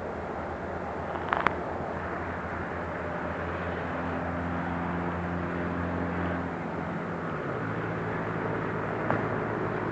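Outdoor city ambience of steady traffic rumble, with an engine hum that drops lower about three-quarters of the way through. A brief sharp sound comes about a second and a half in.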